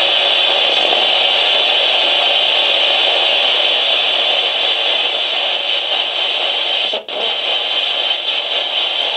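Spirit box sweeping through radio channels: a steady, loud hiss of static, with a brief drop-out about seven seconds in.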